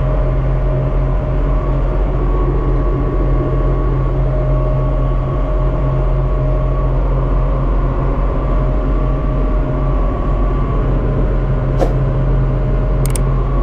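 Armatrac 1104 lux tractor's diesel engine running steadily under way on the road, heard from the cab, loud and unchanging. A few short clicks near the end.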